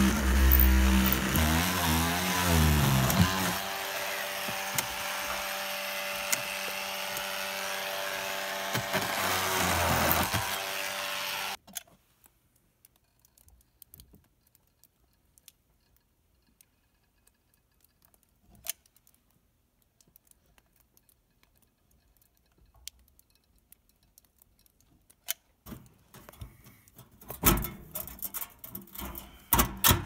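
Small handheld power tool's motor running. Its pitch wavers up and down for a few seconds, then holds steady, and it stops abruptly about eleven seconds in. After that it is near quiet with scattered light clicks, and a cluster of knocks and rattles comes near the end.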